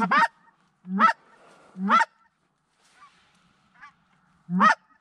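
Goose calls blown from the blind: four loud two-note honks, each breaking from a low note up to a high one, three of them about a second apart and the last after a pause. Fainter honks come in the gap.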